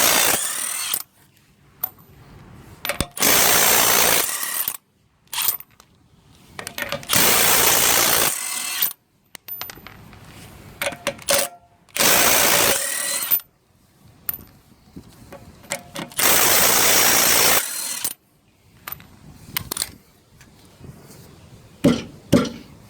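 Milwaukee M12 CIW12 half-inch cordless impact wrench hammering wheel nuts loose, in five bursts of about a second each, roughly every four to five seconds. Small clicks and knocks come between the bursts.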